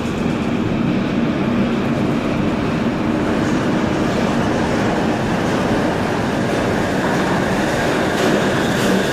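Shonan Monorail 5000-series suspended monorail train approaching and pulling into the station. It makes a steady running noise from its rubber-tyred cars travelling in the overhead track beam.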